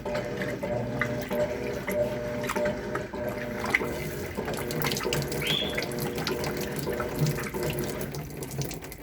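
Electrolux LTC10 top-load washing machine working with a full drum: water rushes and splashes inside, over a steady hum and a low throb that pulses on and off.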